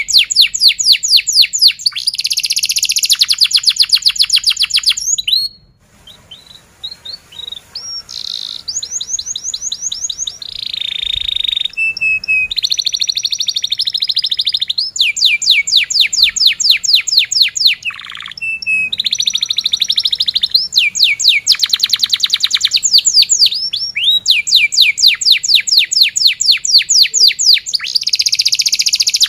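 Domestic canary singing a long, loud song of rapid trills and quick runs of repeated falling notes, changing from one trill to the next, with a short quieter break about six seconds in.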